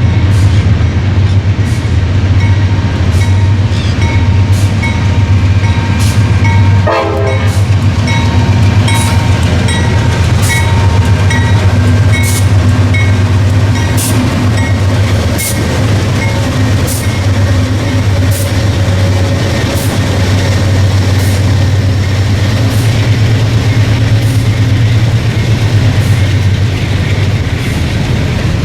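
A train rolling past with a steady low rumble, its wheels clicking over rail joints about every second and a half. A high ringing tone sounds through roughly the first twelve seconds.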